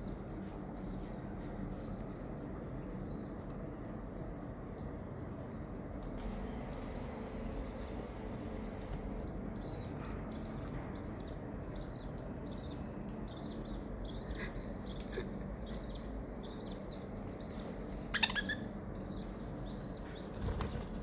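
Small pet parrots chirping in short high peeps, a few a second, over a steady low hum, with one louder sharp call about eighteen seconds in.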